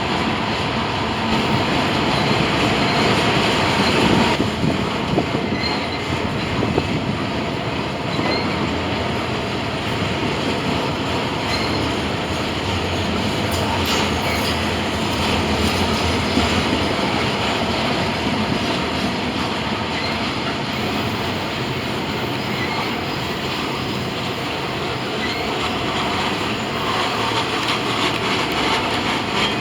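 Freight train cars rolling past: a steady rumble of steel wheels on rail, with a few sharp clacks along the way.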